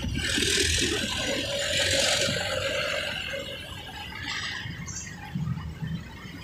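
Road traffic noise with a drawn-out squeal about a second in, lasting a second or two.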